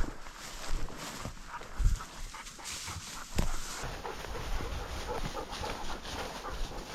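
A bird dog panting close to the microphone, mixed with irregular rustling and snapping as dogs and hunters push through brush, with a few louder knocks near the start.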